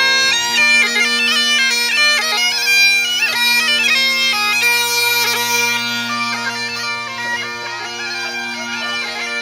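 Highland bagpipes playing a tune: the drones hold one steady low note under the chanter's melody.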